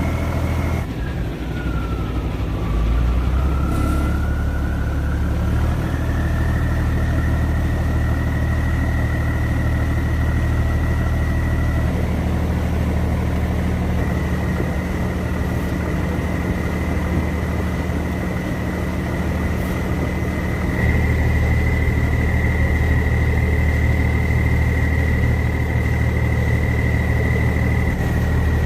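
A boat's engine running steadily under way. About a second in its whine drops in pitch as the engine slows, then climbs back over the next few seconds and holds steady.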